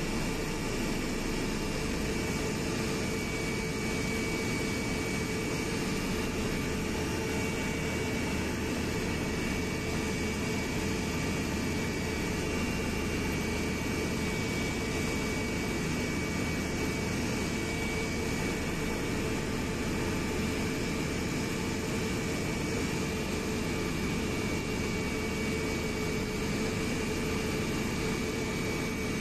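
Airliner cabin noise in flight: engines and rushing air make a steady, unchanging drone, with a couple of faint steady whines in it.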